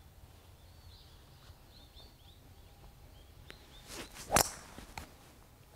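A golf club swung at a ball: a brief swish, then one sharp crack of clubhead striking the ball about four seconds in. Faint bird chirps before it.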